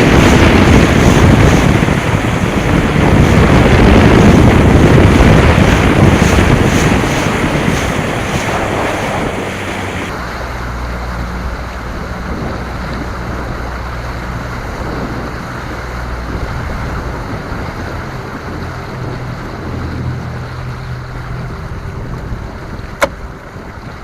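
Strong wind buffeting the microphone, with waves and water around the boat; about ten seconds in it drops sharply to a quieter rush with a low steady hum. A single sharp click near the end.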